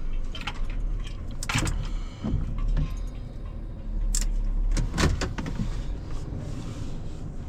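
Wind rumbling and buffeting the microphone, with a few sharp knocks and clicks of movement, the clearest about a second and a half in, around four seconds in and about five seconds in.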